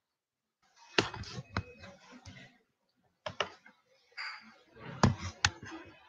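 Computer mouse clicks with rustling handling noise at the microphone: a handful of sharp clicks, two close together about five seconds in.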